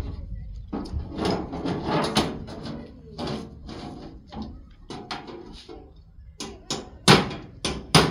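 A cardboard box and its packaging being opened and handled: rustling with scattered clicks and a few sharp knocks, the loudest a little after seven seconds in.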